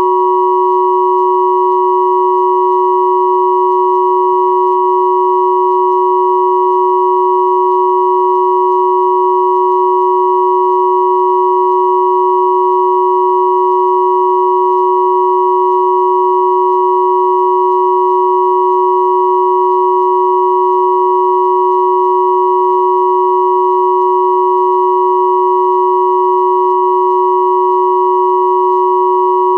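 Three steady electronic sine tones at 369, 963 and 1111 Hz sounding together as one unchanging, continuous chord-like drone.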